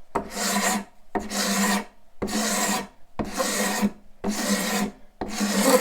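Hand scraper pulled across tough wood in six even strokes, about one a second. Each stroke is a rasping scrape with a steady low chatter tone in it.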